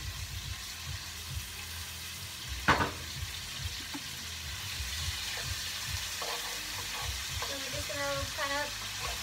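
Thinly sliced chuck beef sizzling in hot grapeseed oil in a frying pan while a utensil stirs it, a steady hiss that grows a little stronger later on. One sharp knock about two and a half seconds in.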